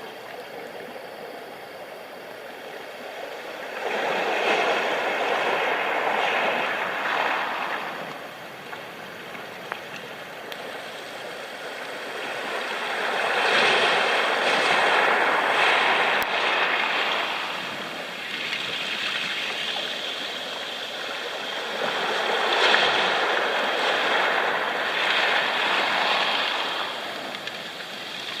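Sea waves breaking and washing up a pebbly shore, the rush swelling and fading three times, about every nine seconds, over a steady background wash.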